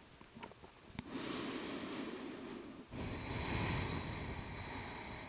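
A person breathing slowly and audibly through a held yoga stretch: an inhale, a brief pause, then a longer exhale. A few faint clicks come before the breathing starts.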